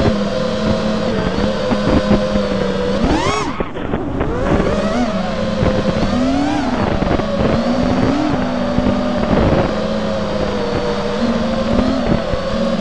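An FPV freestyle quadcopter's brushless motors (T-Motor 2305 2450kv with HQProp Ethix S3 propellers) whining as heard from the onboard camera. The pitch holds steady, then swoops up and down with the throttle, most sharply about three seconds in and again more gently around six and eight seconds.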